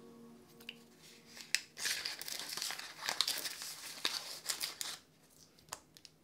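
Plastic packet of instant pudding mix crinkling as it is squeezed and shaken to pour the powder out, with sharp crackles; the crinkling dies away about a second before the end.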